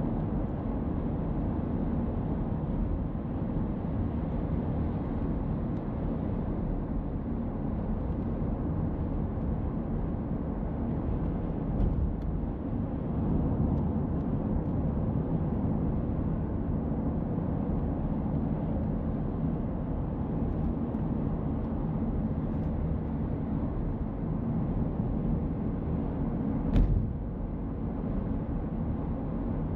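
Car driving along a road: a steady low rumble of tyres and engine. A single sharp thump comes near the end.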